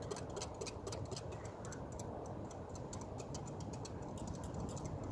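Wire whisk beating buttermilk and eggs in a Pyrex glass measuring cup: quick, light clicking of the wires against the glass, several clicks a second.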